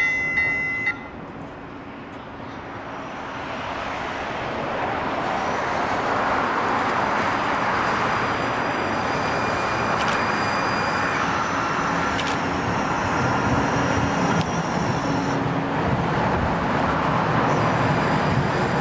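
A short horn note in the first second. Then a Siemens S70 streetcar rolls in on its rails: a steady rumble and hum that grows louder as the car draws up close, with faint high electric whines and a couple of sharp clicks.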